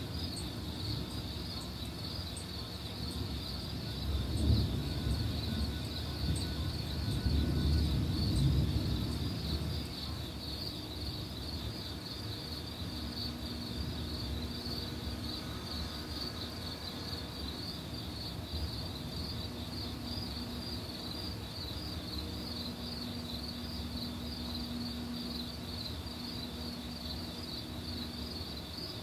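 Night insects chirping in a steady, rapid pulse, with a low rumble of thunder swelling about four seconds in and again, louder, from about seven to nine seconds.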